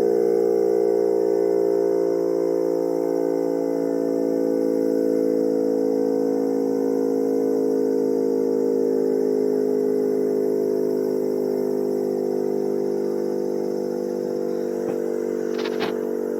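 Electric motor siren on a community centre sounding a steady, wailing tone made of several stacked pitches that slowly fades. It is the 6 p.m. time signal, and the music siren playing alongside it is drowned out. A few faint clicks come near the end.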